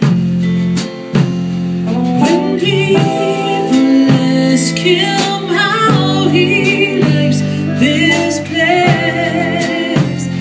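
Country band playing a slow ballad, guitars and drums under a woman's singing voice.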